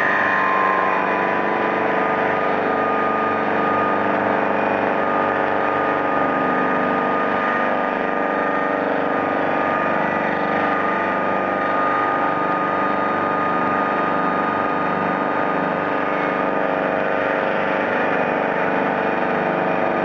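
Double-saw cant sawing machine running steadily, its two large circular saws and drive motors giving a constant mechanical noise with a thin high tone held throughout.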